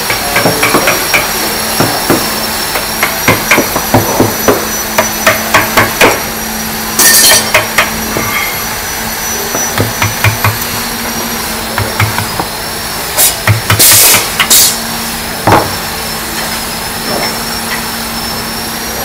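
Hammer blows on wooden chair parts at a workbench, a run of irregular knocks that are densest over the first six seconds and sparser after. A steady machine hum with a high whine runs underneath. Short, loud bursts of hiss come about seven seconds in and again around thirteen to fourteen seconds, and these are the loudest sounds.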